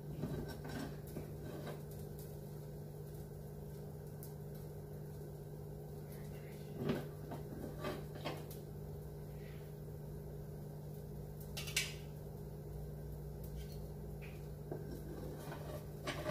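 A metal spatula knocking and scraping lightly a few times against a dosa pan while a cheese dosa cooks, over a steady low hum.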